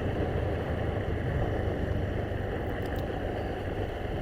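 Motorcycle running steadily while being ridden, with a low engine hum under even road and wind noise on the microphone.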